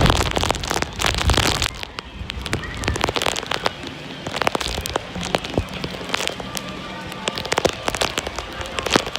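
Typhoon rain: heavy drops striking close by in many irregular sharp taps over a steady wash, with gusts of wind buffeting the microphone in the first second or so.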